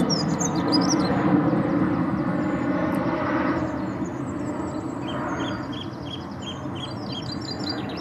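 Dunnock giving its high, thin, rapid warbling song over a low rumble that fades away. Near the end comes a run of evenly spaced short high notes, about three a second.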